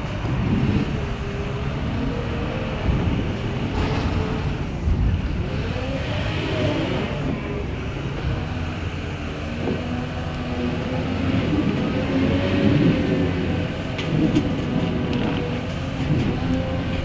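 Claas Torion 1511 wheel loader's diesel engine working hard, its pitch rising and falling again and again as it pushes silage up the clamp and backs off, over a low rumble.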